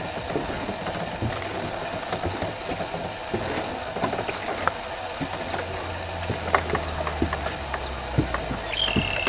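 Small stream running over stones: a steady burble with many little splashes and clicks, and a low rumble under it in the second half.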